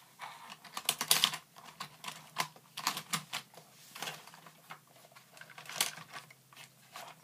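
Die-cast Hot Wheels cars and the plastic lanes of a Hot Wheels Blasting Rig truck's trailer, clicking and rattling irregularly as hands work at a car stuck inside the launcher.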